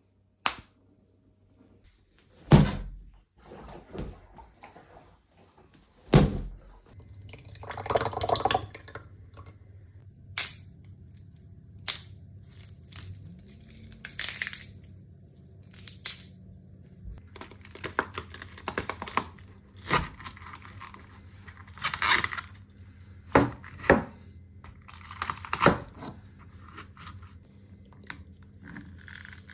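A string of separate knocks, taps and clicks mixed with short scraping and crinkling noises, some louder than others, with a low steady hum coming in about seven seconds in.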